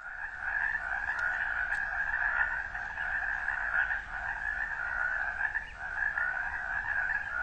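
A dense chorus of frogs calling steadily, with a brief lull about six seconds in.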